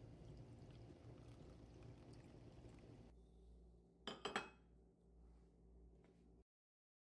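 Hot water poured faintly from a porcelain teapot into a stoneware cup, then the cup set down on a ceramic saucer with two quick clinks about four seconds in.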